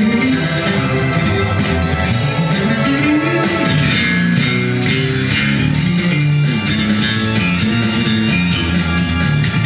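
Amplified electric bass guitar playing a run of low notes on its own, with a slide up in pitch and back down about two to three and a half seconds in.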